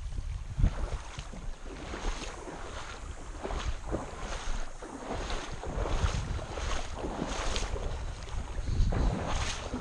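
Kayak paddle strokes dipping and splashing in shallow creek water, a splash about every half second to a second, over wind rumbling on the microphone.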